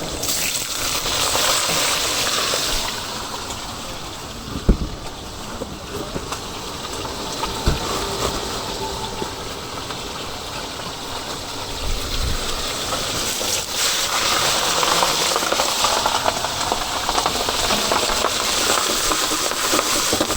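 Chicken frying in a wok, a steady hissing sizzle that eases off after a few seconds and builds again later, with a couple of sharp knocks.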